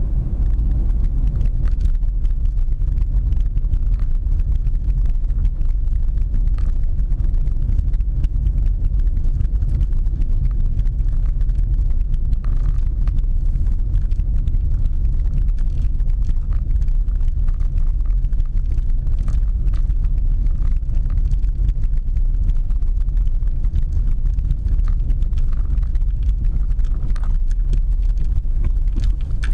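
Inside a new VW Polo's cabin, tyres run over cobblestones with a steady low rumble and many small ticks and knocks. There is no rattle from the boot cover or seats. The car is taken as sound, the only clicks coming from loose coins, pen caps and a phone in the cabin.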